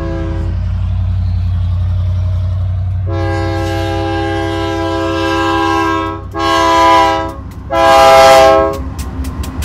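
Air horn of an approaching BNSF GE Dash 9-44CW freight locomotive sounding a multi-note chord: a brief toot, then a long blast about three seconds in, followed by two shorter blasts. Beneath it the diesel engines rumble steadily, growing louder as the train nears.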